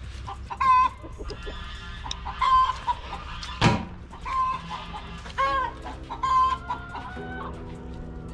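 Chickens clucking, with about six loud, pitched calls spread through the stretch. A single sharp knock sounds about halfway through.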